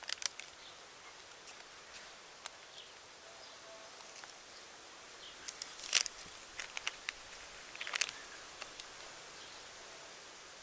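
Outdoor ambience: a steady hiss with scattered sharp clicks and taps, loudest about six and eight seconds in, and a few faint short chirps.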